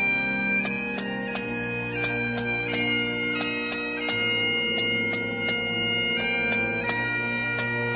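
Bagpipes playing a tune over their steady drones.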